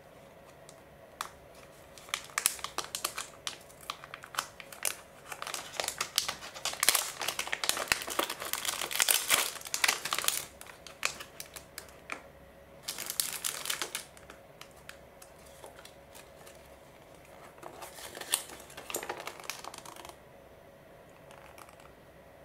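Crinkling plastic packaging as a small toy-block kit bag is opened and its inner bag of plastic pieces handled, in a long busy stretch of rustling and crackling. Two shorter bursts of rustling follow, about 13 and 19 seconds in, as the folded paper instruction sheet is taken out and unfolded.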